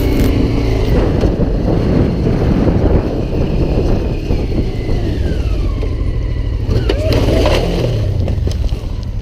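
Honda Africa Twin's parallel-twin engine pulling under throttle up a steep rocky dirt climb, heard close up from the bike with a heavy rumble, its note sinking over a few seconds around the middle.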